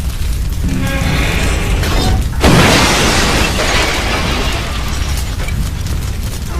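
Music with a steady low rumble, broken about two and a half seconds in by a sudden loud boom that dies away over a second or two.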